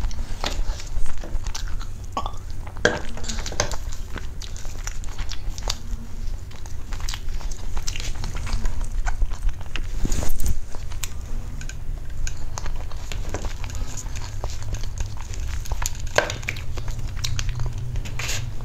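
Close-miked eating of a strawberry cream cake: soft chewing and mouth sounds, with small clicks and scrapes of a metal spoon on the dish, picked up by a lapel microphone. A few louder clicks and knocks stand out, about a second in, around three seconds, mid-way and near the end.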